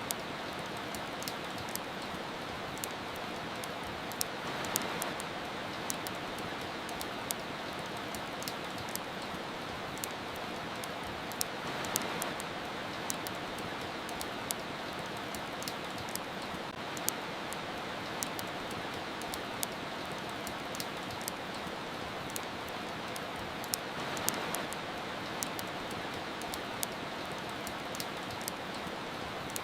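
Steady rain hiss mixed with a wood fire crackling, with frequent small sharp pops and snaps at irregular moments. The rain swells a little louder three times.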